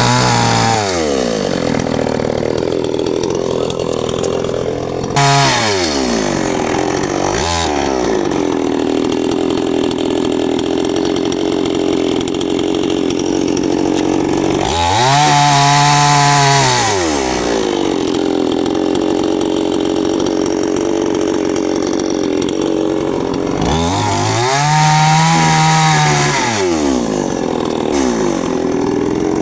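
Chainsaw running throughout, its engine speed rising and falling again and again as it is worked through wood. Twice, around the middle and later on, it is held at high revs for about two seconds, with steadier running between.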